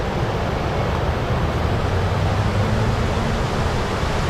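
Steady rushing of a rocky mountain river's rapids, with a faint low drone joining about halfway through.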